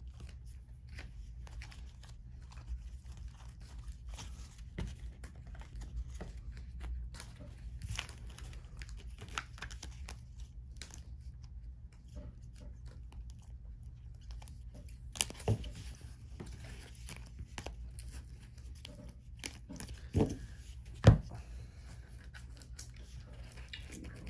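Trading cards and rigid plastic card holders being handled and sorted on a table: light rustling and scattered small clicks. There are a few sharper knocks in the last third, the loudest near the end.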